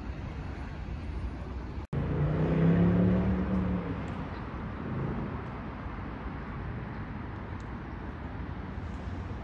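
Steady road-traffic noise. After a brief cut-out about two seconds in, a passing motor vehicle's engine hum grows loud, peaks and fades over about two seconds, and then the steady traffic noise carries on.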